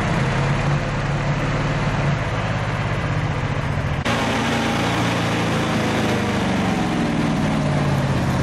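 GAZ-66 truck's V8 petrol engine running steadily at low revs as the truck crawls through a pit.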